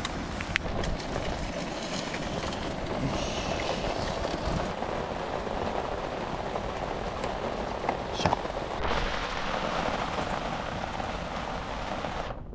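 Steady rain pattering on a tarp overhead, with a few light clicks and taps from seasoning bottles being handled.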